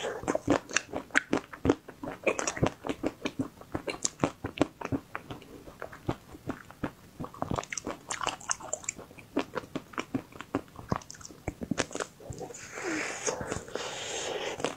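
Close-miked biting and chewing of a hard chocolate-coated ice cream bar: a dense run of sharp crunches and clicks as the frozen coating breaks in the mouth. Near the end there is a stretch of softer hissing mouth noise.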